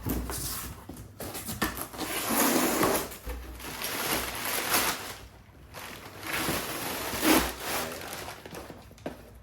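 Cardboard box and packing material rustling and scraping as the box is opened, in several irregular bursts.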